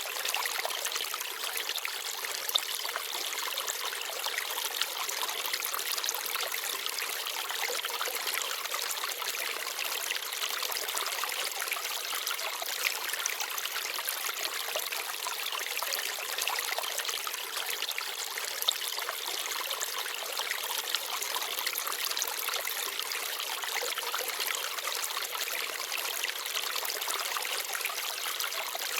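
Small forest stream babbling and trickling over stones, a steady high rushing of water with a few brief louder splashes.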